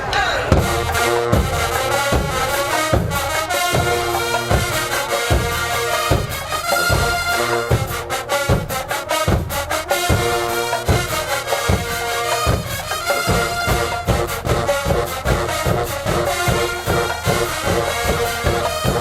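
HBCU marching band playing: the brass section holds chords over a steady, hard-hit drum beat, and the percussion grows busier about a third of the way through.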